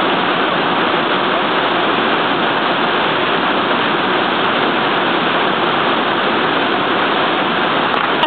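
Steady rushing of creek water falling over rocks, an even roar that doesn't change.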